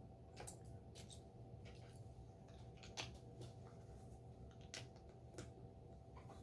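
Faint, scattered clicks and taps of Lego pieces being handled and pressed together, the sharpest about three seconds in, over a steady low hum.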